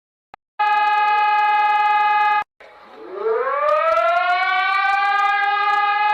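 Civil defense siren sound: a steady siren tone that cuts off sharply, then winds up again, rising in pitch for about two seconds before holding a steady note.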